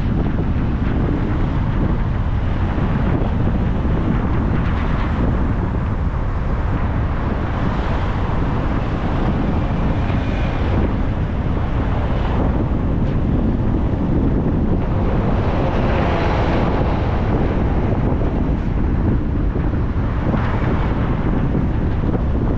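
Wind buffeting the microphone: a steady, loud low rumble with a hiss above it that swells every few seconds.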